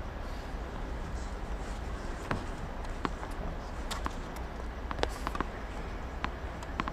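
Tennis practice on a hard court: several sharp pops of racket strings striking the ball and the ball bouncing, spaced irregularly from about two seconds in, over a steady background hum.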